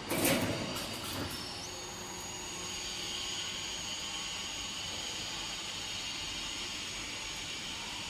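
Cable tray roll forming machine running: a steady mechanical hiss with a faint high whine, and a brief clatter about a quarter second in.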